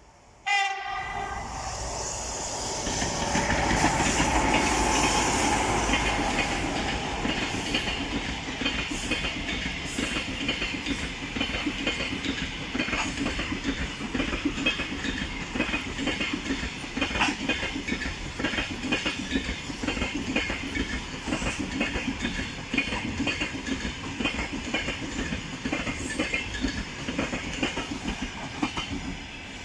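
EP20 electric locomotive giving a short horn blast about half a second in, then a long passenger train rolling past. The wheels clatter over the rail joints in a steady clickety-clack with a low rumble.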